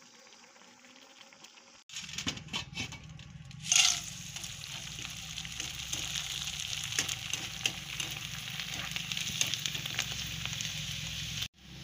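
Hot oil sizzling in a wok as colourful dried snack pellets (fryums) deep-fry, with scattered light clicks as they are stirred with a wire skimmer; a sharp, loud hiss flares about four seconds in. The first two seconds hold a fainter sizzle from a pan of noodle stir-fry before a cut.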